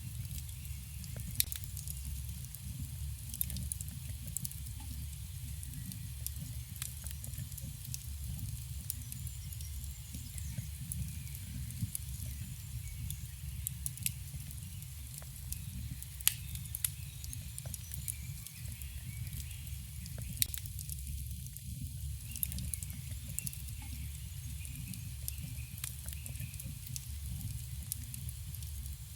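Campfire burning: a steady low rumble of the flames with frequent scattered sharp crackles and pops from the burning wood.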